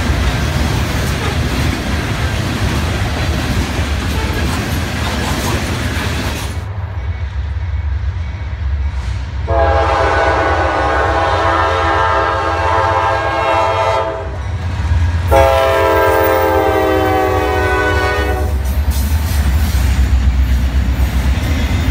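Approaching freight train's locomotive horn sounding two long blasts, the first about four seconds and the second about three, over a steady low rumble. Near the end the train's cars roll past with wheel clatter.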